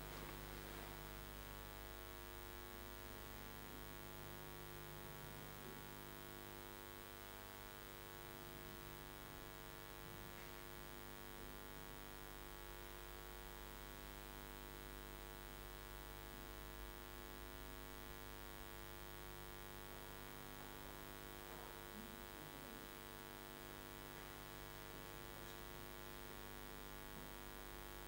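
Faint, steady electrical mains hum with a ladder of overtones, unchanging throughout; no speech or music.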